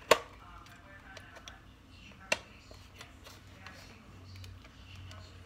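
Metal beaters of an electric hand mixer clicking and rattling as they are handled and pushed into the mixer's sockets, with a sharp click just at the start and another about two seconds in, and lighter ticks between.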